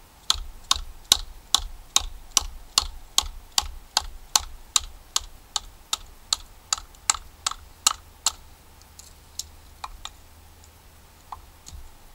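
Wooden baton striking the spine of a Condor Bushlore bushcraft knife, driving the blade down through a log to split it (batoning): about twenty sharp knocks at two to three a second, then a few scattered lighter taps over the last few seconds.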